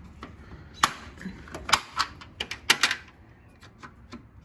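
Metal latches on a box fan's housing being unsnapped one after another: a run of sharp clicks and snaps, the loudest about one, two and three seconds in, then a few fainter ticks near the end.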